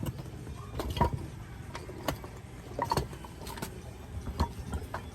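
Irregular metallic clicks and knocks, roughly one or two a second, over a low steady hum: metal parts and tools being handled while working on a truck's rear axle.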